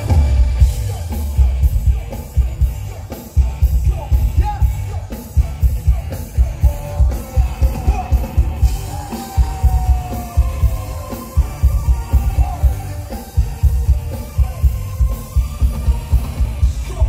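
Live concert music played loud through a PA system, driven by a heavy bass beat at about two pulses a second, with voices faintly over it.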